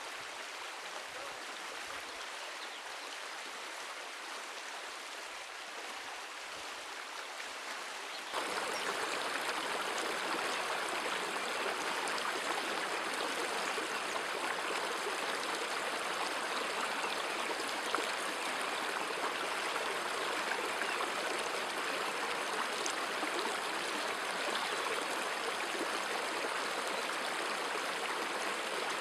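A shallow stream running over rocks, a steady rushing of water. About eight seconds in it steps up louder and brighter, with a faint thin high tone above it.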